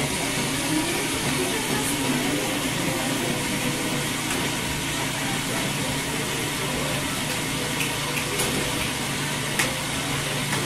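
Electric blender running steadily, churning cooked potatoes with their cooking water into a thick soup base.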